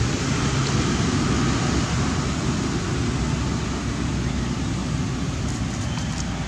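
Wind buffeting the microphone: a steady low rumble with hiss, no distinct events.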